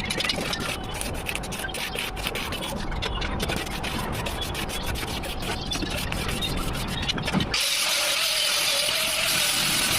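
Metal-shop noise with many irregular crackles. About three-quarters of the way in, a power tool takes over, most likely an angle grinder working steel: a steady whine over a loud, high grinding hiss.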